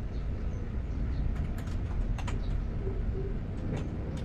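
A few scattered key clicks from an AULA F3010 membrane keyboard as keys are pressed, over a steady low background rumble.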